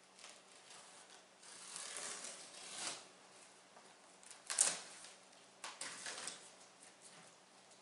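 Utility knife slicing through packing tape on a cardboard box: a few scraping cuts, with one short, sharp rasp a little over halfway through.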